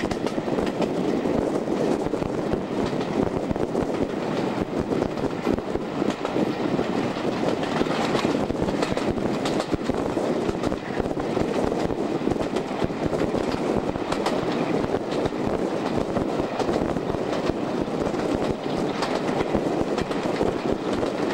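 A Class 35 'Hymek' diesel-hydraulic locomotive with its Maybach engine working as it hauls a train, heard from an open window of a coach behind it. It makes a steady, unbroken rumble that blends the engine with the wheels running on the track.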